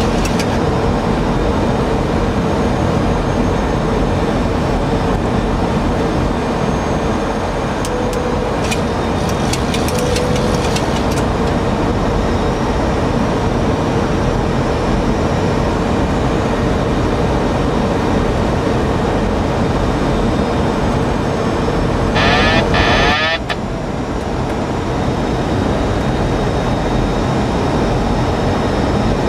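Steady cockpit noise of a Boeing 737 on final approach: the rush of air over the airframe and the engines, with a constant hum. About 22 seconds in, a brief higher-pitched sound lasting about a second stands out above it.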